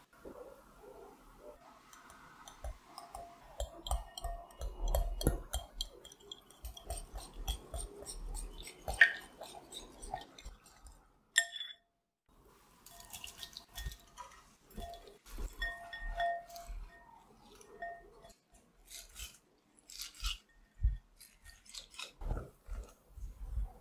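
A small coil whisk beating eggs in a glass bowl, its wires ticking and clinking against the glass in quick, dense strokes. After a short break about halfway, a spatula stirring shredded cabbage and carrot in a glass bowl gives soft rustling and dull knocks near the end.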